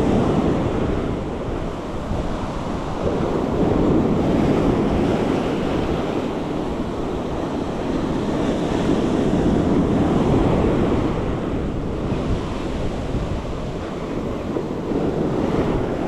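Ocean surf breaking and washing up the beach, a steady rushing that swells and eases every few seconds as waves come in.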